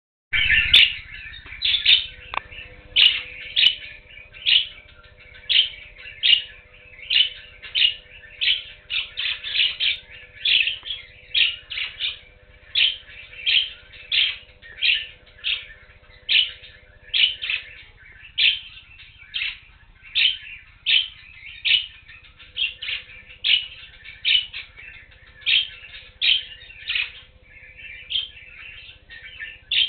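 A group of budgerigars (budgies) chirping without pause: short, sharp chirps about one and a half a second, with softer chatter in between.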